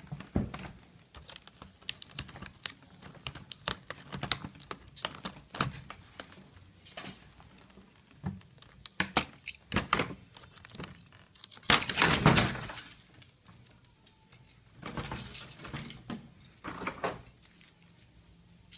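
Thin plastic packaging being handled: a string of clicks, knocks and crinkles from a clear blister tray and a moulded box insert, with a louder crackling burst about twelve seconds in.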